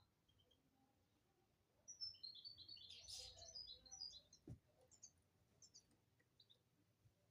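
Faint European goldfinch song: a quick run of high twittering notes about two seconds in, then a few scattered notes, with a single soft click midway.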